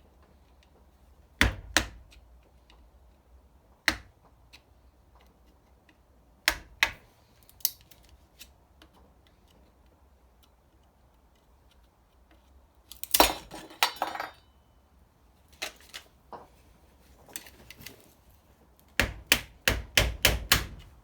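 Sharp hammer blows and tool clatter on a heavy-duty transformer being dismantled for its copper: scattered single and paired strikes, a short jumble of knocks, then a quick run of about seven blows near the end.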